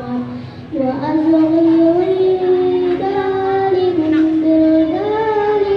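Children singing a sholawat, an Islamic devotional song in praise of the Prophet, in long held, gently gliding notes, with a short breath pause about half a second in.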